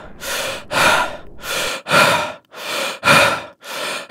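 A man breathing fast and heavily, about two loud breaths a second, in and out, ragged and distressed as in an anxiety attack.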